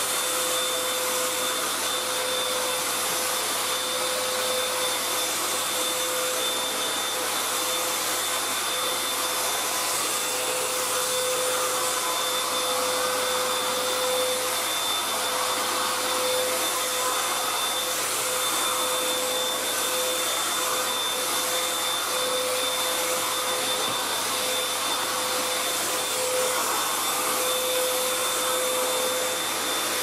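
Beaumark TinyTurbo V600 (BM222) handheld vacuum cleaner running steadily as its brush sweeps spilled detergent powder off a hard tiled floor. Its small motor gives a constant whine over the rush of air.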